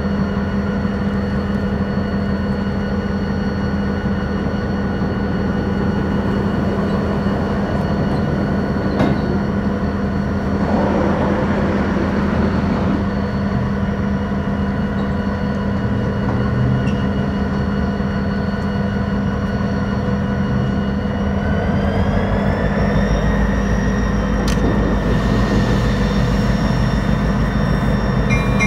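EMD GP39M and GP38-2 diesel locomotives running with a steady engine drone. A little past twenty seconds in, the engines rev up with a rising whine as the throttle is opened, and they run on louder and deeper.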